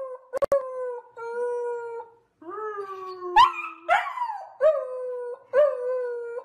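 Young Siberian husky howling in a string of about seven short howls. Each howl starts with a quick upward yip, then holds its pitch or slides slowly down.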